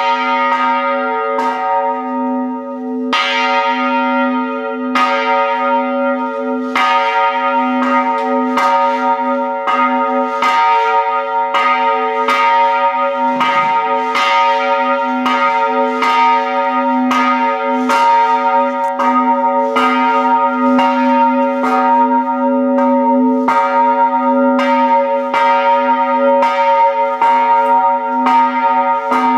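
An old American bell on a straight yoke with a wheel, swung and rung with a flying clapper. The clapper strikes about once a second, and each stroke rings on into the next in a steady peal.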